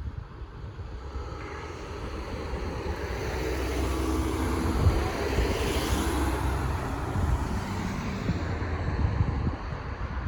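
A car passing on the street: road and engine noise swell to a peak about halfway through, then fade away. Low wind rumble runs underneath.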